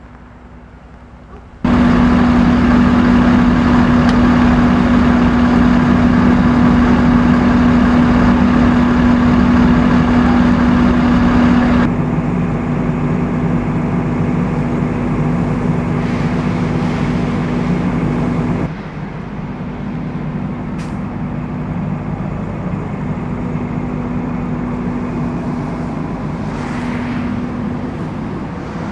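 Diesel engines of fire engine and ambulance idling, a loud steady hum over the hiss of heavy rain. It starts suddenly just under two seconds in and drops abruptly in loudness about twelve seconds in and again near nineteen seconds.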